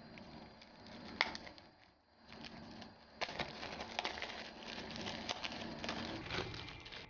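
Clear plastic shrink wrap crinkling and crackling as it is slit and peeled off a smartphone box. There is a sharp click about a second in, and denser crinkling from about three seconds on.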